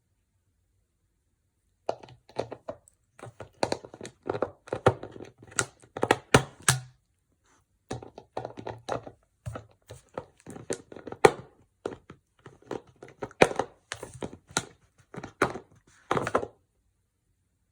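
A beagle chewing on a hard chew toy and knocking it about: irregular clusters of thunks and clacks, starting about two seconds in.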